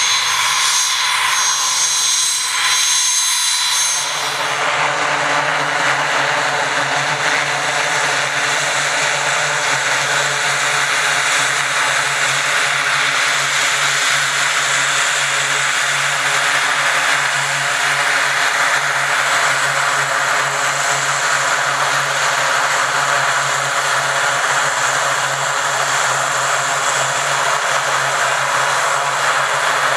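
Twin turboprop engines of a Grumman E-2C Hawkeye, with eight-bladed propellers, running steadily as it taxis, a loud drone with a low propeller hum. For about the first four seconds a different aircraft's high turbine whine is heard, and it changes abruptly to the Hawkeye's sound.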